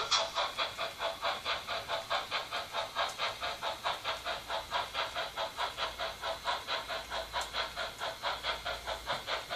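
Steam-locomotive chuffing from a Märklin H0 model steam locomotive's sound: a steady, even rhythm of hissing puffs, about four to five a second.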